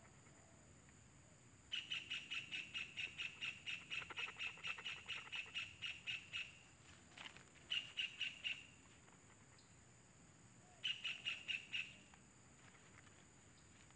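Kingfisher nestlings calling: fast trains of short, high, evenly spaced chirps, about six a second. There are three bouts, a long one of about five seconds starting near the two-second mark, then two short ones.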